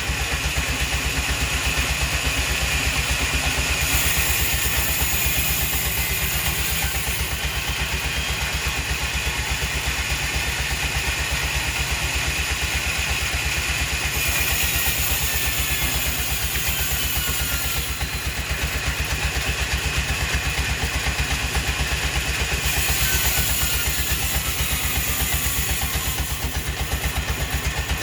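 An engine running steadily at an even speed, with a rapid low pulsing and a hiss above it that shifts in level every few seconds.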